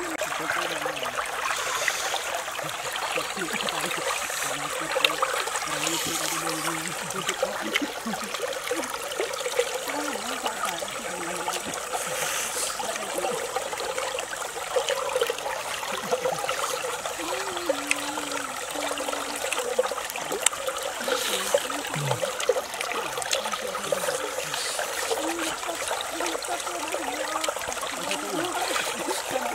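Shallow stream flowing over rocks: a steady rush and trickle of water.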